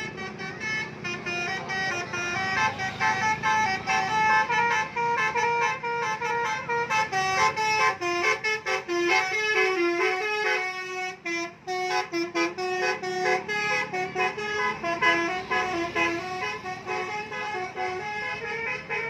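Bus telolet horn: a multi-tone air horn on a bus playing a quick melody of stepping notes, with a short break about eleven seconds in.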